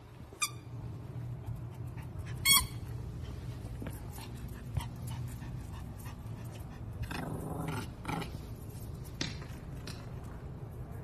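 A small dog giving a few short, high yips, the loudest about two and a half seconds in, over a steady low background hum.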